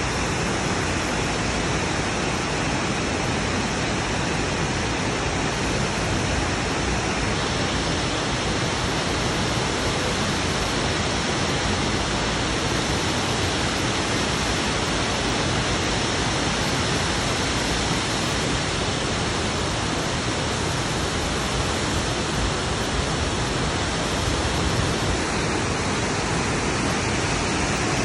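Burney Falls waterfall: a steady rush of water pouring down the cliff into its plunge pool.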